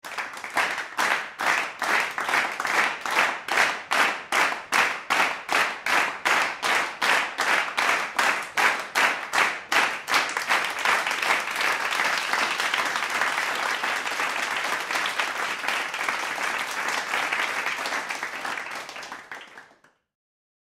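A crowd clapping together in rhythm, about two and a half claps a second, then breaking into steady applause that fades out near the end.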